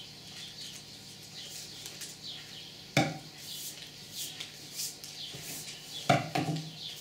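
Scissors snipping through magazine paper in a series of short cuts, with two sharp knocks about three and six seconds in as the scissors and other things are set down on the table.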